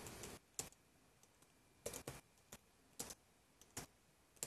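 Faint computer keyboard keystrokes, tapped sparsely: short clicks singly or in small clusters with pauses between them.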